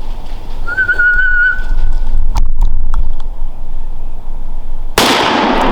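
A short, wavering whistle sounds first, over a low rumble, followed by a few sharp clicks. About five seconds in comes a loud rifle shot, its ringing echo cut off abruptly about a second later.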